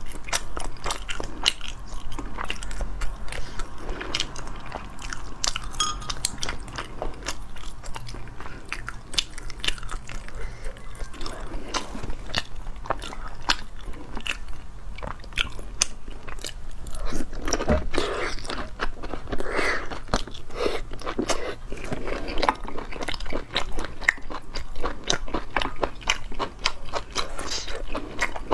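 Close-miked chewing and biting of firm sea snail meat, a dense, continuous run of crunchy, wet clicks.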